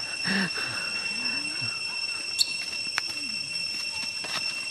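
A steady high-pitched whine of two tones throughout, with faint low voices murmuring now and then. A short high chirp comes about two and a half seconds in, and two sharp clicks near the end.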